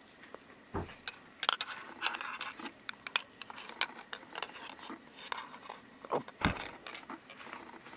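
Plastic clicks and rattles from a jump starter's clamp lead being handled, its connector plugged into the pack and the spring clamps turned over in the hands, with two dull knocks, one near the start and one about three quarters through.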